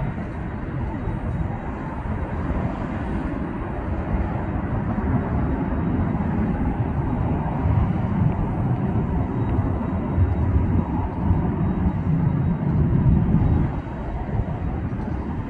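Boeing 757-200's Rolls-Royce RB211 jet engines at takeoff power as it climbs away: a deep, steady rumble that builds over the first few seconds and is loudest in the second half. It eases back a little near the end.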